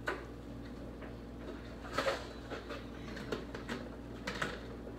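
Light knocks and clatters of kitchenware being handled, as a bowl is fetched, scattered over a steady low hum.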